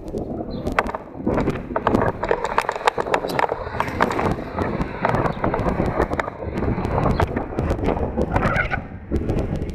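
Rumble of wind on a helmet-mounted camera's microphone while riding an electric bike, with many sharp clicks and knocks as the bike and mount rattle over the pavement.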